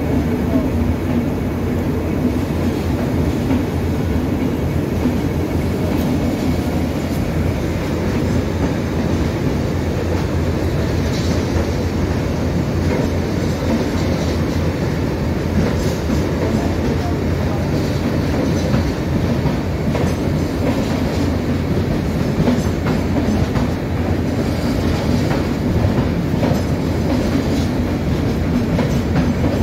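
LHB passenger coaches of a departing express train rolling past: a steady rumble of wheels on rail, with irregular clicks as the wheels cross rail joints.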